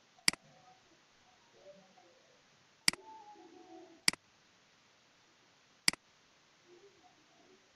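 Computer mouse button clicking: four sharp, separate clicks spread over about six seconds.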